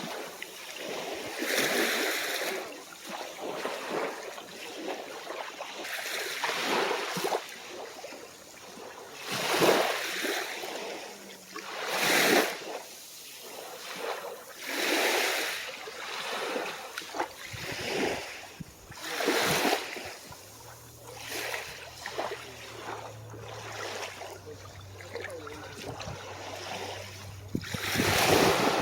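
Calm ocean waves breaking and washing up on a shore in repeated surges every two to three seconds. About two-thirds of the way in, a low steady hum comes in underneath and runs on.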